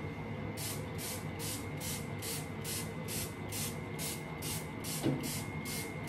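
Fine-mist pump-spray bottle of rose water being spritzed over and over, quick short hisses at about three a second.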